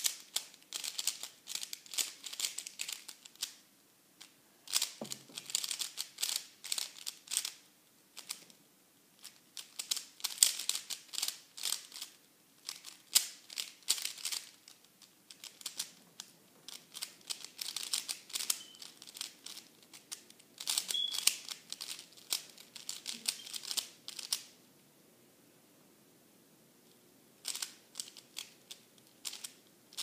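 55 mm Zhanchi 3x3 speed cube being turned rapidly by hand, a fast clicking and clacking of the layers. The turns come in bursts separated by short pauses, with one longer pause of about three seconds near the end.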